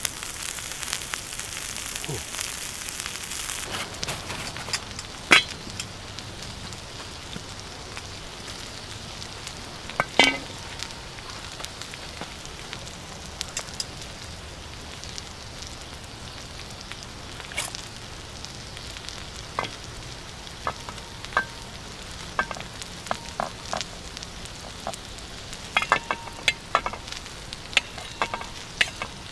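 Goat meat frying in fat on a hot stone: a steady sizzle, louder for the first few seconds, with scattered sharp pops and crackles and a quick run of them near the end.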